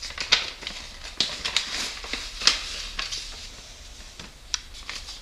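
Paper envelope being opened by hand and its contents pulled out: a series of short, irregular, crisp paper rustles.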